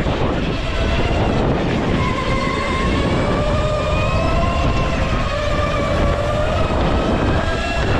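Go-kart motor running under throttle, its pitch climbing slowly as the kart gathers speed, then dropping near the end as it slows. A heavy low rumble of wind and track noise sits under it.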